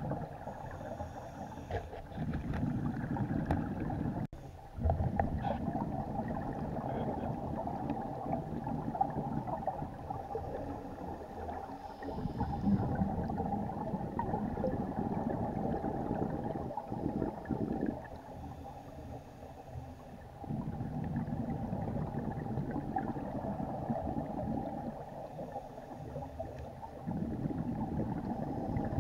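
Muffled underwater noise of scuba breathing heard through the camera housing: the diver's exhaled regulator bubbles rumbling in long stretches, with a few brief lulls between breaths.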